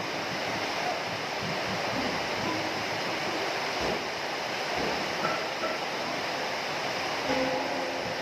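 Heavy rain falling steadily, with a few short, clear drip notes scattered through it.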